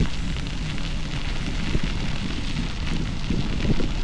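Bicycle tyres crunching and crackling over a gravel trail as the bikes roll along, with wind rumbling on the camera microphone.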